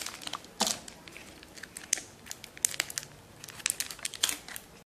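Thin plastic slime packet crinkling and crackling as it is worked open by hand, in an irregular run of sharp little crackles.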